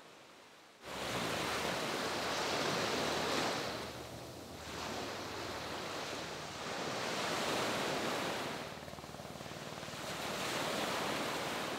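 Sea surf washing onto a beach, a steady rush of waves that swells and fades every few seconds; it starts suddenly about a second in.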